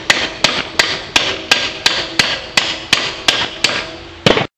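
Hammer blows on a metal bracket, bending it closed so it can clamp the alternator. The strikes come in a steady rhythm of about three a second, each with a short metallic ring, and end with a louder final blow near the end before stopping abruptly.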